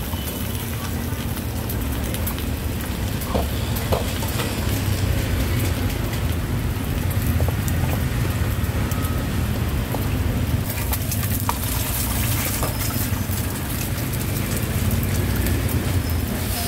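Fried rice sizzling in a hot wok, with scattered clinks and scrapes of the spatula, over a steady low rumble.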